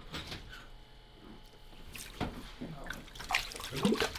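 Water splashing and dripping, with irregular knocks and clatter.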